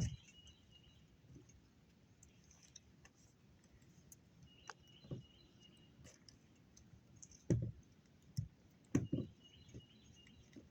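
Scattered knocks and taps from handling roofing material by hand, with a few louder knocks after about seven seconds, two of them close together. A bird chirps faintly now and then.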